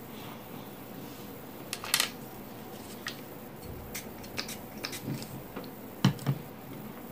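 Small clicks and taps of makeup brushes and product containers being handled on a vanity, with a sharp click about two seconds in and a louder double knock about six seconds in.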